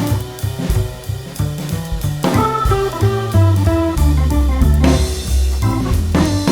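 Background music: guitar and bass over a drum kit with a steady beat.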